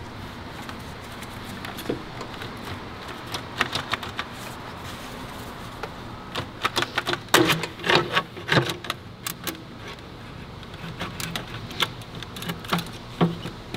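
Irregular clicks, clacks and knocks of the plastic intake manifold on a 2008 BMW 328i being worked loose in the engine bay, with a quick run of knocks about halfway through.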